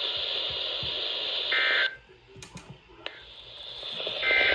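Radio receiver static hiss broken by two short buzzing bursts of EAS SAME digital data tones, one about a second and a half in and one near the end. The hiss cuts out just after the first burst and builds back. The bursts are the end-of-message code closing the tornado warning broadcast.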